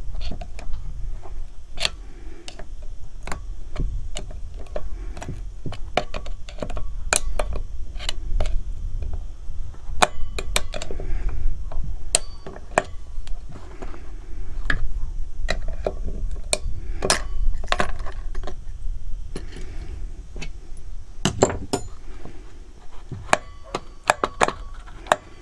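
Screwdriver and small metal chainsaw parts clicking and clinking irregularly as the chainsaw is taken apart by hand, over a steady low rumble.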